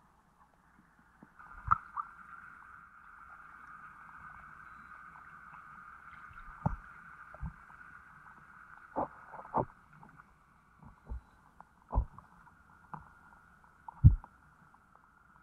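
Muffled sound picked up by an underwater camera in its housing: a series of dull knocks and thumps, about nine, the loudest near the end, over a steady mid-pitched hum that comes in after a second or so and fades about two-thirds of the way through.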